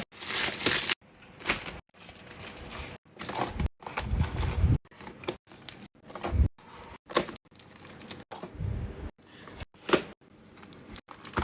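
Objects and packaging being handled during unboxing: a quick string of clicks, taps and short rustles, cut by brief silent gaps.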